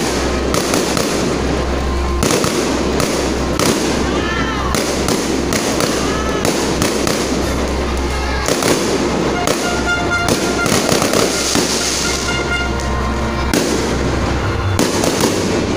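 Fireworks display: aerial shells bursting overhead in rapid, near-continuous bangs and crackling.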